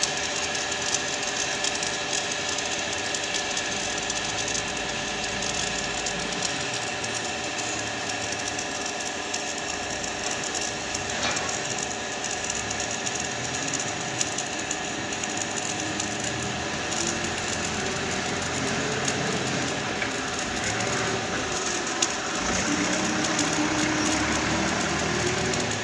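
Stick (arc) welding on steel: the electrode's arc crackling and sizzling steadily. A faint hum rises and falls in pitch near the end.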